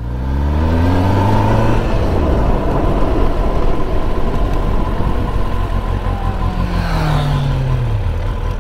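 Kawasaki ZX-10R's inline-four engine pulling away, its note climbing in pitch over the first two seconds, then running at speed under a rush of wind noise. Near the end the engine note falls as the throttle is eased.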